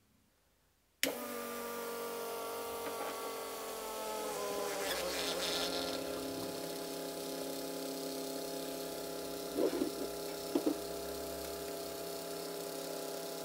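Electric fuel pump of a K-Jetronic fuel-injection bench rig switching on about a second in and running with a steady buzzing whine, its pitch settling slightly lower a few seconds later as the system pressurises. A brief hiss comes soon after, and two light clicks near the end.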